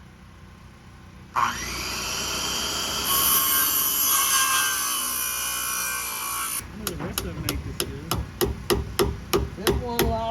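A power saw spins up and cuts through wood for about five seconds, then stops. Then a hammer drives nails, with quick even blows about three a second.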